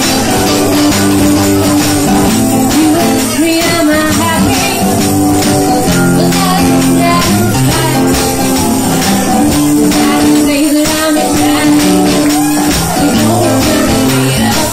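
Live acoustic band playing: a woman singing into a microphone while beating a cajón, with acoustic guitar and a drum kit keeping a steady beat.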